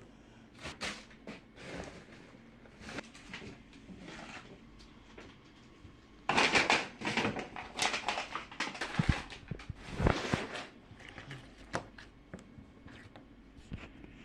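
Slime being squished and pulled by hand, with sticky crackles and small clicks, busiest in the middle and with a couple of soft knocks.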